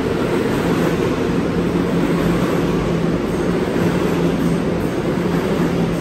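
Kawasaki R211A subway train pulling out along a station platform, a steady rumble of wheels on rail with a constant low hum.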